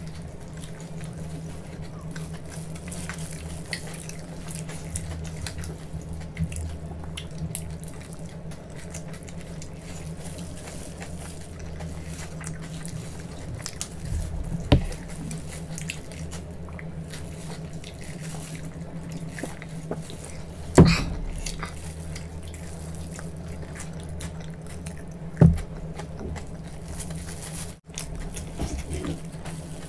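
Close-miked chewing and wet mouth sounds of people eating, a steady patter of small smacks and crackles over a steady low hum. Three sharp knocks stand out in the second half.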